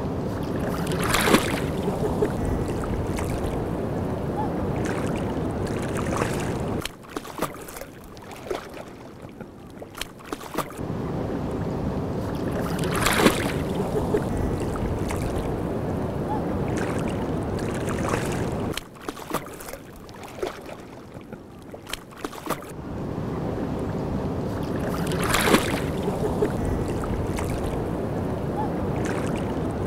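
Water noise: a rushing, rumbling haze with a few sharp clicks. It is heavy for about seven seconds, drops away for about four, and the same pattern comes round again about every twelve seconds.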